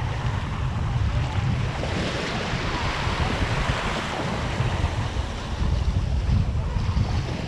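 Shallow ocean surf washing steadily, with wind buffeting the microphone in a low, fluttering rumble.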